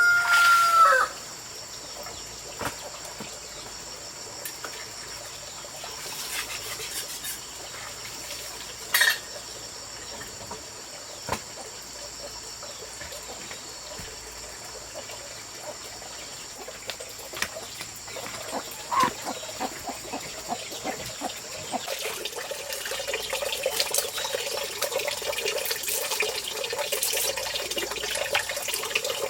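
A rooster crows, its call ending about a second in. Then comes quiet outdoor ambience with a steady high-pitched hum and scattered small clicks and knocks. From about two-thirds of the way through, water runs and splashes, growing a little louder.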